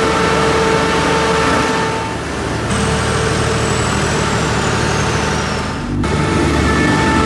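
Truck-mounted fog cannon's large fan blowing out water mist, a loud steady rush with a steady whine over it and the truck's engine running underneath. The sound changes abruptly twice, about two and a half and six seconds in.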